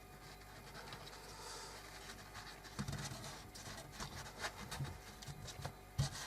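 Faint scratching and handling noise of hands working glue and cloth onto a small roof frame, with a few soft knocks and clicks from about three seconds in.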